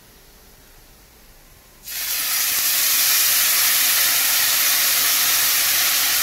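Soy sauce and mirin sauce poured into a hot oiled frying pan of potato cakes, setting off a loud, steady sizzle that starts suddenly about two seconds in.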